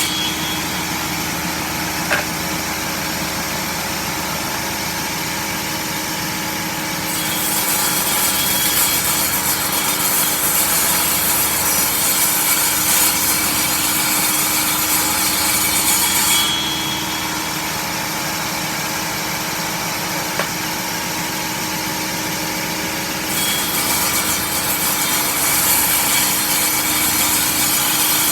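Power saw running steadily and cutting wood: two long cuts, one from about a quarter of the way in to past the middle and one starting near the end, each heard as a louder, brighter hiss over the motor's hum.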